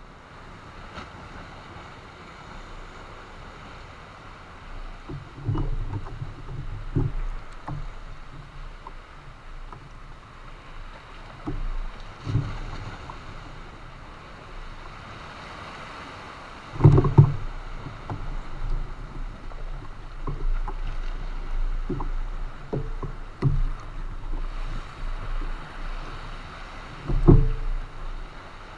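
Water lapping against a fishing kayak's hull, with wind on the microphone and a scattering of low thumps and knocks, the loudest about seventeen seconds in and another strong one near the end.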